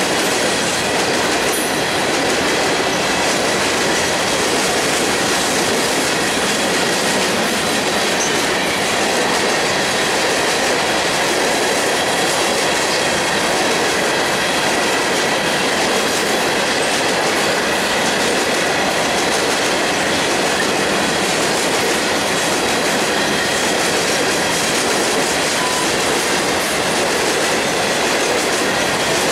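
Long freight train of loaded rock hoppers and gondolas rolling past: a steady, loud rolling noise of steel wheels on rail, with a faint thin squeal held steady over it.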